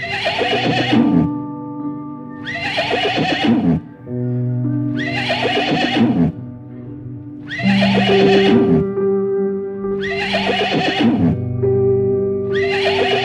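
A horse neighing again and again, one falling whinny about every two and a half seconds, over background music with long held notes.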